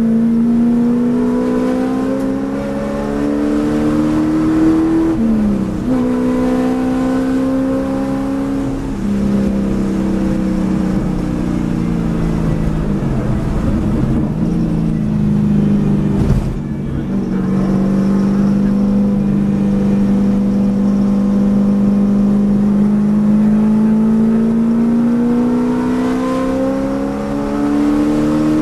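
Track car engine heard from inside the cabin, accelerating hard with its pitch climbing. It drops sharply at an upshift about five seconds in and again near the end. Through the middle the note falls away as the driver eases off, with a brief knock about halfway through.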